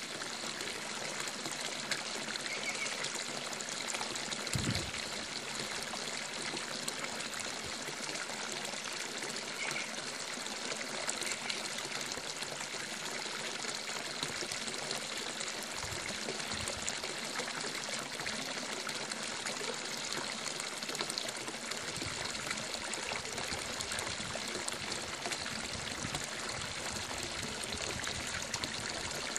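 Water running steadily with an even trickling, splashing rush, with a few soft low thumps now and then.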